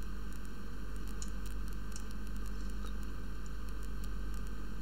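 Steady hiss and low mains hum from the recording setup, with a few faint clicks.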